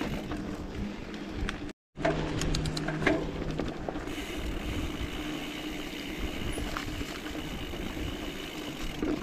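Mountain bike riding along a dirt trail: steady rolling and rattle noise with scattered clicks. The sound cuts out for a moment about two seconds in.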